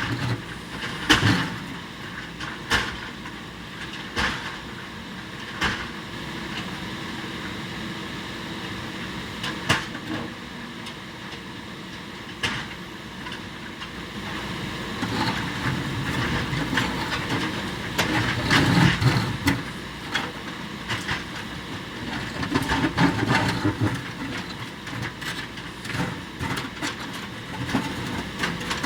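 JCB backhoe loader's diesel engine running under load, with scattered sharp knocks and cracks of the bucket hitting and breaking concrete. The engine grows louder and busier about two-thirds of the way in.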